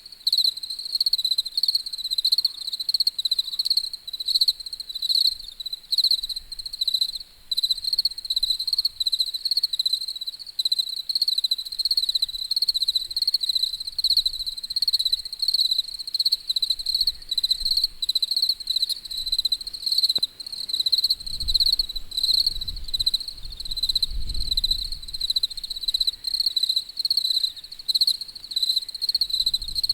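Crickets chirping in a fast, continuous pulsing trill. A faint low rumble rises beneath it about two-thirds of the way through.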